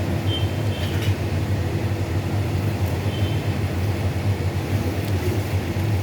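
Steady low mechanical hum, with a few faint, brief high-pitched tones over it.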